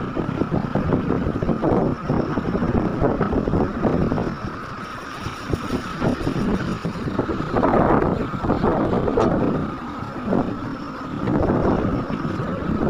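Heavy construction machinery running, a diesel excavator or dump truck at work, with wind buffeting the microphone.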